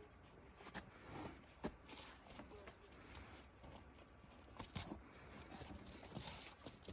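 Faint, irregular knocks and shuffling of a horse moving about, with a few sharper clicks scattered through.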